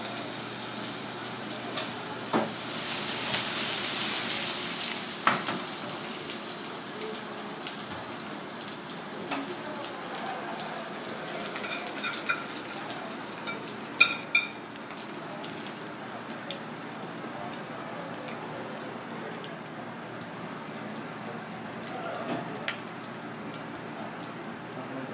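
Sauce sizzling in a hot pan, swelling into a loud hiss a few seconds in as liquid is poured into it. A metal spoon stirs and scrapes in the pan, with scattered clicks and a few ringing clinks against the metal about twelve and fourteen seconds in.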